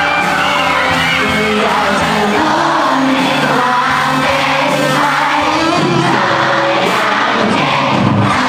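Live rock band playing through stage amplifiers: a singer over electric guitars and a drum kit.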